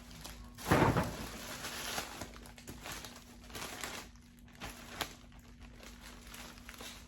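Packaging being handled, rustling and crinkling, with the loudest rustle about a second in and smaller rustles and clicks after it. A faint steady hum lies underneath.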